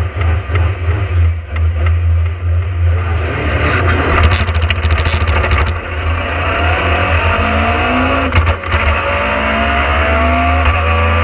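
Talbot Sunbeam rally car's all-steel Vauxhall 2.0-litre engine, heard from inside the cabin, pulling away hard from the stage start in first gear. The revs dip briefly about eight and a half seconds in as the sequential gearbox shifts up to second, then climb again.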